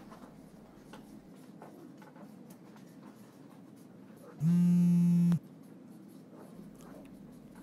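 Mobile phone vibrating: a single steady, low electric buzz lasting about a second, starting about four and a half seconds in and cutting off sharply, signalling an incoming message or call.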